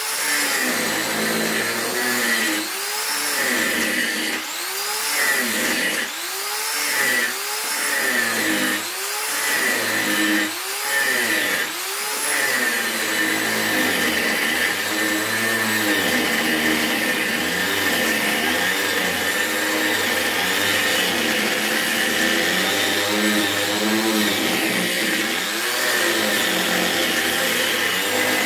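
Corded electric sander with a round pad working along a rough wooden plank. For the first dozen seconds its pitch rises and falls about every second and a half as it is pushed back and forth, then it runs steadier.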